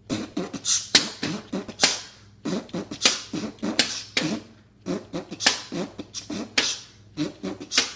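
A person beatboxing: a quick, rhythmic run of mouth-made percussion strokes mixed with short voiced vocal sounds.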